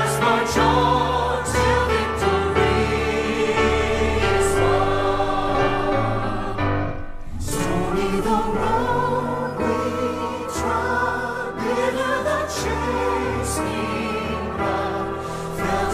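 Background music: a choir singing a slow, gospel-style song with held notes over a steady bass accompaniment.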